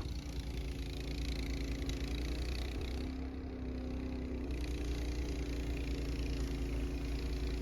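An engine running steadily, with a slight change in its pitch about halfway through.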